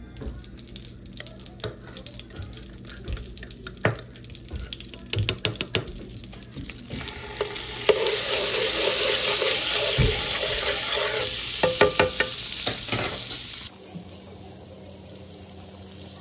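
Butter and minced garlic sizzling in a nonstick frying pan while a spoon stirs and scrapes, with clicks and knocks of the spoon against the pan. The sizzle is loudest in the second half and cuts off sharply near the end.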